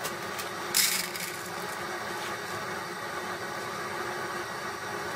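Hop pellets poured into a plastic bowl on a digital scale: a brief rattling rush about a second in, over steady background noise.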